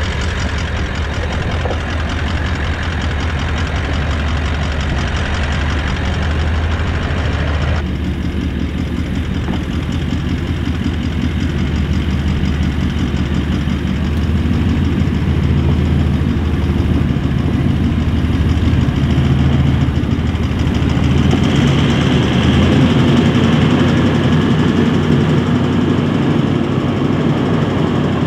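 Toyota LandCruiser 76 engine running steadily at low revs as the four-wheel drive crawls through deep ruts on a dirt track. It grows louder in the second half as the vehicle comes closer.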